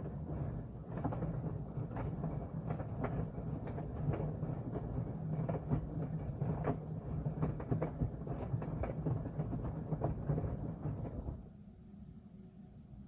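Washing machine drum turning, with a strong low hum and many irregular clicks and knocks, then stopping about eleven seconds in and leaving only a faint hum.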